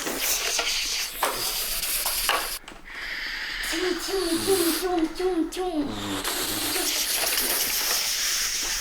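A child making mouth sound effects: breathy hissing noises, with a run of short, wavering voiced tones about halfway through.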